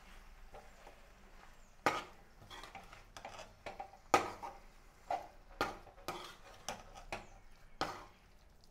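A perforated steel ladle stirring a thick masala of dried baby shrimp and vegetables in a metal pan, knocking and scraping against the pan's side and bottom: about eight sharp clacks at uneven spacing, starting about two seconds in.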